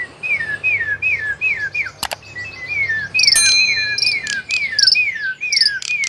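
Caged songbird singing a run of repeated down-slurred whistles, about two to three a second, with higher, shriller notes joining about three seconds in. There is a sharp click about two seconds in.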